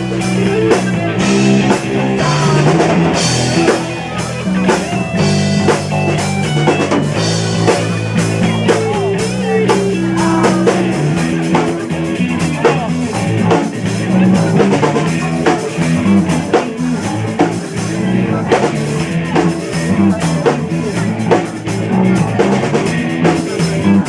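Live rock band playing an instrumental passage: drum kit, electric guitar and bass, with no singing.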